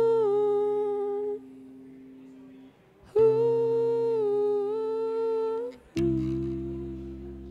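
Closing passage of an experimental rock song: long held notes over a steady low drone. One note fades out about a second and a half in, a second note is held from about three to five and a half seconds, and a lower note begins about six seconds in.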